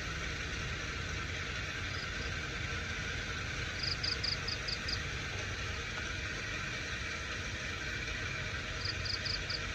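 Steady outdoor hiss over a low rumble, with a short run of about six rapid high-pitched chirps twice, about four seconds in and again near the end.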